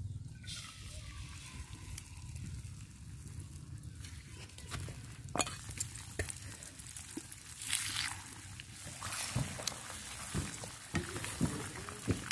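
Beaten eggs poured into hot oil in a frying pan and sizzling, with sharp clicks in the second half as a metal spoon works through the frying eggs.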